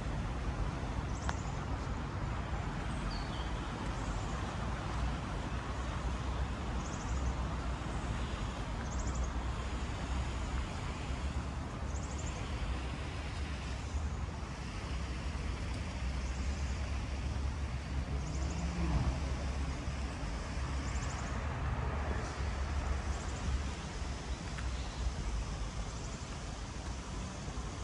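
Street ambience: a steady rumble of road traffic, with short high chirps every second or two.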